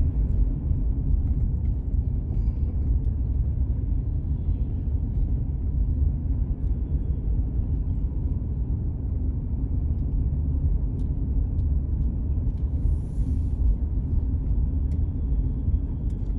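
Steady low rumble of a car driving along a city street, road and engine noise heard from inside the cabin.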